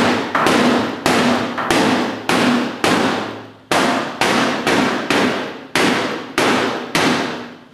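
Hammer blows on a Toyota Land Cruiser's steel body panel, about a dozen strikes at a steady pace of a little under two a second. Each blow rings and fades before the next. The panel is being pounded to knock out a deep dent.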